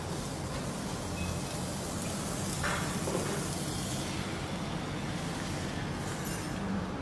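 Steady background noise with a low hum. There is a brief louder rush a little under three seconds in, and the high hiss drops away about four seconds in.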